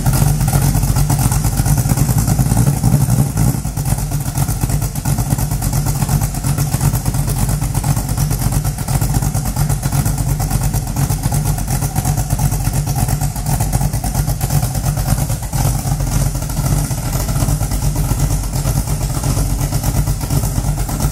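Ford GT40's V8 engine running at idle with a steady, even exhaust beat. It is a little louder for the first few seconds, then settles.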